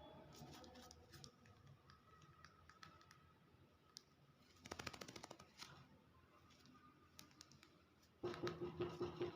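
Hill myna making soft scattered clicks and a short rapid clicking rattle in the middle, then a louder raspy, pulsing call about a second long near the end.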